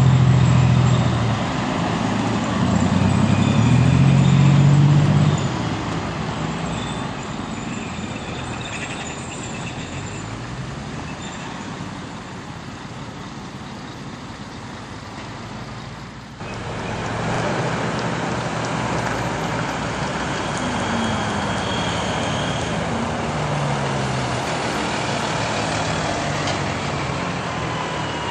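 Transportpanzer Fuchs 6x6 armoured vehicle's diesel engine passing close, loudest in the first five seconds with its pitch gliding, then fading as it and a Wolf jeep drive off. About 16 seconds in, the sound switches to steady engine and tyre noise of further military vehicles approaching on the road.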